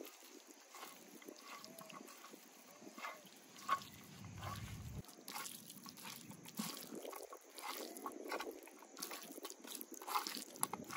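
Raw chicken wings being squeezed and rubbed by hand in an oily seasoning of chopped garlic, ginger and paprika: irregular wet squelches and sticky smacks of meat on a wooden board, with one sharper smack a little over a third of the way in.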